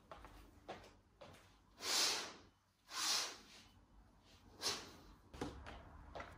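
Quiet household movement: two soft swishes about a second apart, with a few light knocks and clicks around them.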